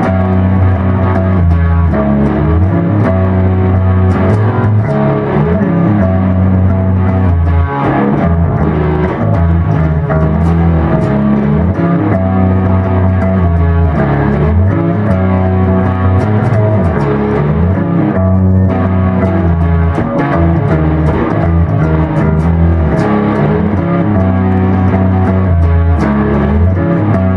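A music groove led by bass guitar and guitar, with a repeating bass line at a steady, even loudness.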